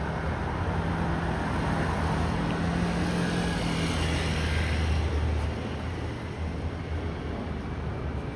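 A motor vehicle passing close by: a low engine rumble with tyre or motion hiss that builds to its loudest about five seconds in, then fades.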